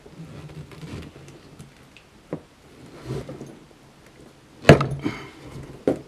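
Metal clicks and rattles of a hand-operated cable lug crimping tool being taken off the first crimp and set on the lug for the second crimp, with a loud sharp clack near the end.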